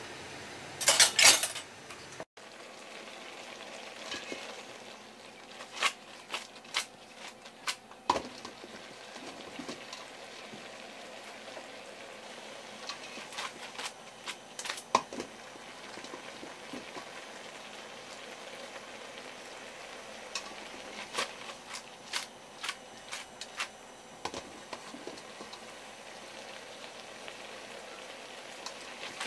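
Asari clam meat simmering in a pot of soy-sauce-and-sugar broth, the thick liquid bubbling with a steady low hiss and scattered pops and crackles as it reduces down toward a glaze. A short louder clatter comes about a second in.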